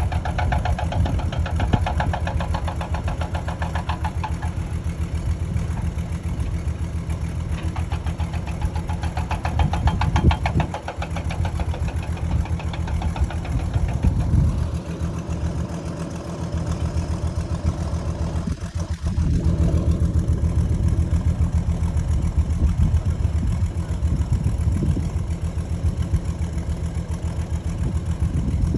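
An engine running steadily with a fast, even low pulsing.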